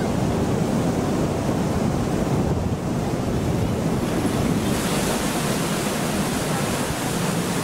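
Steady rushing noise of wind on the microphone and water from a moving tour boat; the hiss grows brighter about five seconds in.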